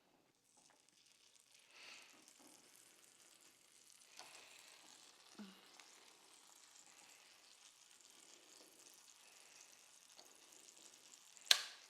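Pancakes frying in a pan after being flipped, a faint, steady sizzle, with a few light knocks and one sharp click near the end.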